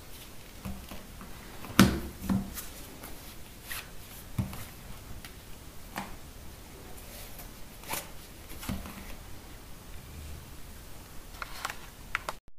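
Handling noise from two BlackBerry phones being picked up, set down on a tabletop and slid into fabric pouches: scattered clicks, knocks and rubbing, the loudest knock about two seconds in. The sound cuts off abruptly at the very end.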